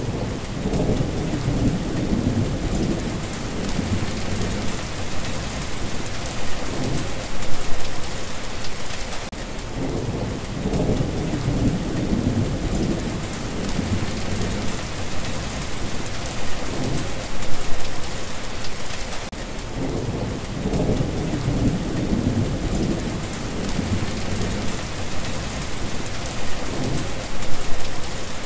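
Steady heavy rain with low rolling thunder rumbles that swell and fade about every ten seconds.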